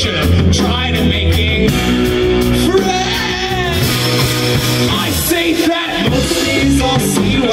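Rock band playing live: electric guitar, bass guitar, keyboard and drums, with a man singing.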